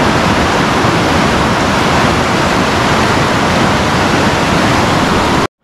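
Steady loud rushing of a river waterfall, cutting off abruptly near the end.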